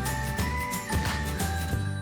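Background music with a melody over a steady beat, thinning out near the end.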